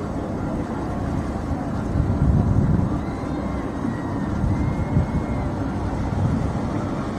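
Motorboat engines running at speed on open water, heavily buffeted by wind on the microphone, with the loudest gusts about two to three seconds in.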